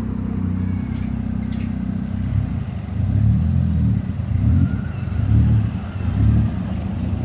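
Motor vehicle engine running, a steady low hum that swells and eases several times in the second half as the vehicle is moved.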